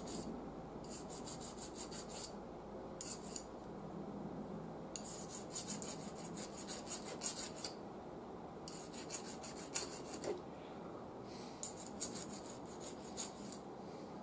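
Short bursts of rapid rasping, scraping strokes, about six of them, each lasting up to a couple of seconds, with pauses between.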